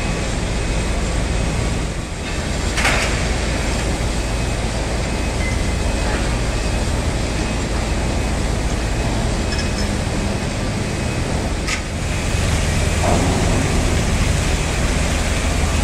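Steady machinery drone of a dry-dock shipyard with a low hum, broken by two sharp metallic knocks; it gets louder about three quarters of the way through.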